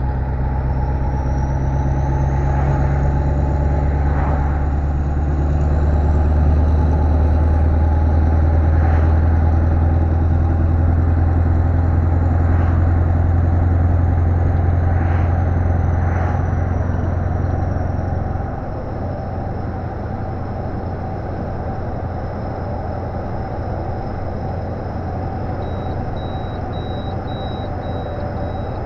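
Scania 143-450's V8 diesel engine heard from inside the cab, running steadily at constant revs. About two-thirds of the way through, its note drops and quietens. Near the end a faint, evenly spaced beeping sets in.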